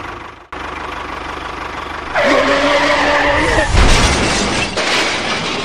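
Vehicle engine noise that cuts off about half a second in and restarts. From about two seconds in, a loud pitched sound lasting about a second and a half rides over it, followed by loud, noisy running.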